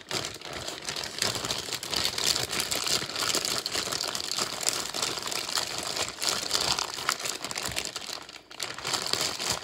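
Plastic zip-top bag crinkling steadily as hands handle it.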